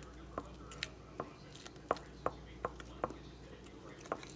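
A metal utensil clinking against a glass bowl: sharp, uneven clicks, about two a second.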